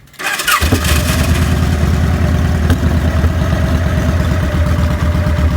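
2000 Victory V92SC motorcycle's V-twin engine starting about half a second in, then idling steadily with a low, even beat. It is the idle that the owner calls rough.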